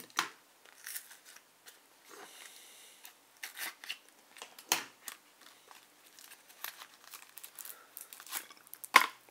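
Plastic shrink-wrap on a KeyForge card deck box being picked at and peeled off: scattered crinkles and crackles, with a sharp snap near the end.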